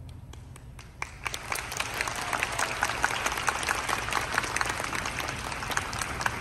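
Audience applauding after a concert band's piece: a few scattered claps, then the applause fills in about a second in and carries on steadily.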